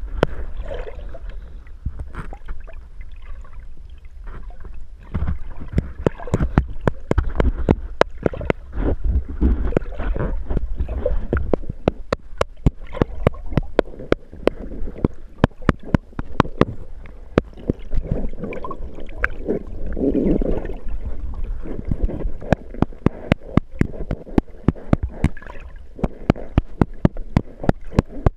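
Stones knocked together underwater: an irregular run of sharp clicks, a few a second, over the low rumble and slosh of moving water.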